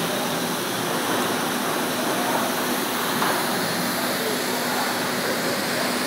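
Tunnel boring machine cutterhead grinding through a concrete station wall as it breaks in, a steady rushing noise of grinding, spraying water and falling rubble with a low steady hum underneath.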